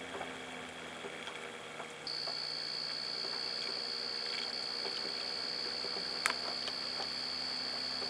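Homemade reed switch motor running, its disc spinning on a bearing with a steady hum and a high steady whine. The whine is missing for about the first two seconds and then comes in, with light ticks throughout and one sharp click about six seconds in.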